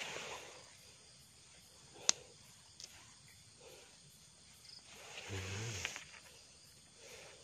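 Metal knife digging and scraping into soil and dry leaf litter while termite mushrooms are pried up, with soft rustling. A sharp click about two seconds in and a smaller one just after.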